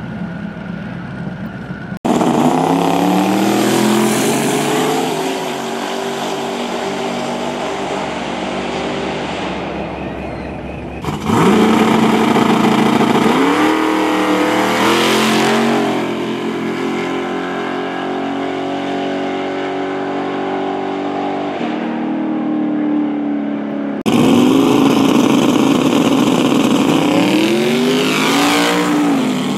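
Loud drag race cars launching and accelerating down the strip, engine pitch climbing and falling as they run. The sound cuts abruptly from one run to the next about 2, 11 and 24 seconds in.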